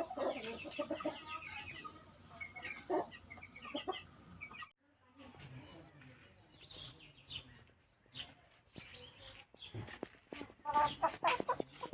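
Aseel chickens clucking in short, scattered calls.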